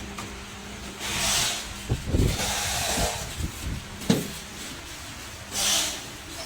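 Packaging work in a factory: three short rasping, hissing bursts with a few sharp knocks, the loudest knock about four seconds in.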